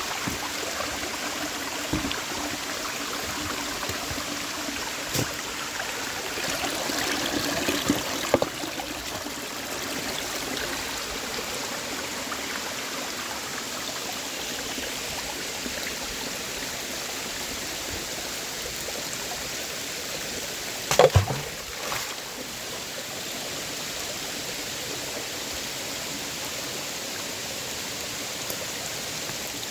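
Creek water running steadily over small cascades, trickling and gurgling. It swells louder about a quarter of the way in, and there is one brief, louder burst about two-thirds of the way through.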